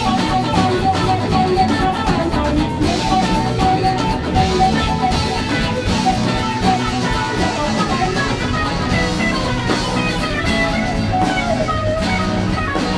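Live rock band playing an instrumental passage: electric guitar lines over a drum kit.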